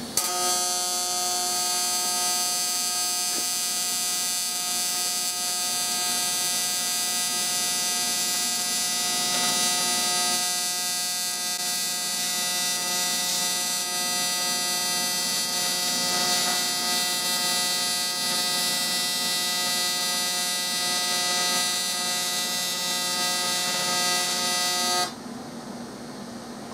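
AC TIG welding arc on a cast-aluminium Polaris jet ski engine intake: a steady, even buzz pitched by the machine's 175 Hz AC frequency. It cuts off suddenly near the end when the arc is broken.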